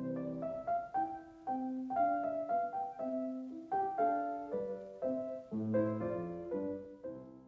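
Piano playing a short melody over chords, one note after another at a steady pace, the notes ringing and fading.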